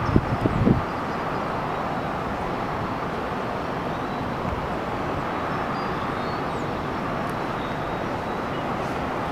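Boeing 757 jet engines running at taxi idle, a steady rushing roar. Wind buffets the microphone with a few low thumps in the first second.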